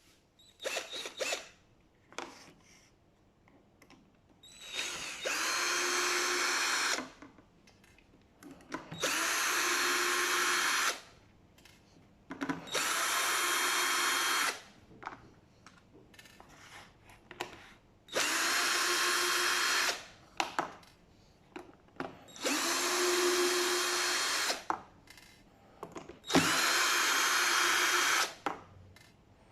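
A power drill-driver running in six short runs of about two seconds each, steady in pitch, with clicks and handling between them: backing out the screws of a pressure washer gun's plastic housing to open it.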